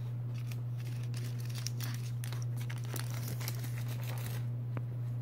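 Crinkling and rustling of paper and plastic-backed floor pads as a small puppy scrambles over them, in a dense run that stops about four and a half seconds in, over a steady low hum.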